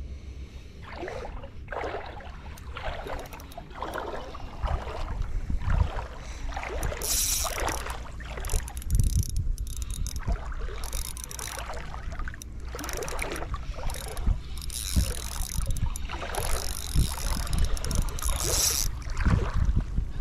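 Small spinning reel being cranked through a lure retrieve, its gears whirring in stretches with short pauses, over a steady rumble of wind on the microphone.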